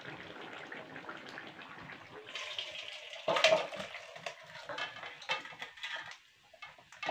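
Thick curry being ladled out of a metal kadhai into a stainless steel bowl: a metal ladle scrapes and clinks against the pans while the wet curry slops into the bowl. It starts as a steady hiss, then turns to scattered knocks, with the loudest clank about three seconds in.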